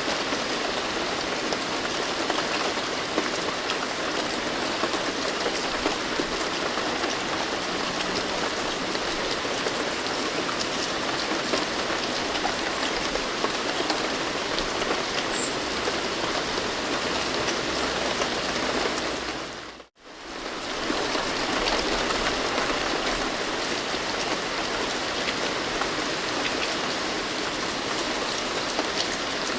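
Steady rain falling, with many small drop ticks in an even hiss. About two-thirds of the way through it fades out to silence for a moment and swells straight back, like a seam in a looped recording.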